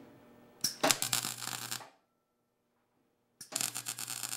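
MIG welder arc crackling and buzzing as small steel strap tabs are tack-welded onto a steel frame, in two bursts of about a second each.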